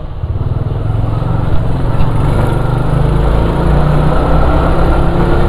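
Motorcycle engine running as the bike is ridden, growing louder over the first couple of seconds, then holding steady.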